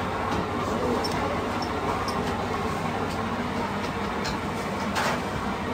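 Steady machine hum of a busy kitchen, with a few light knocks and clinks, the sharpest about five seconds in.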